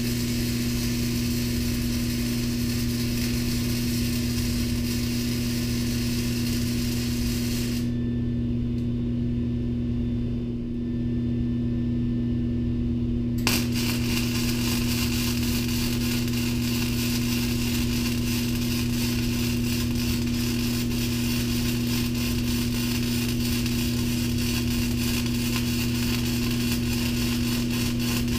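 Wire-feed welder arc crackling steadily as steel brackets are welded to a lawn tractor frame, stopping about 8 s in for several seconds and then starting again, over a steady hum. The welder thinks the wire speed is a little too high.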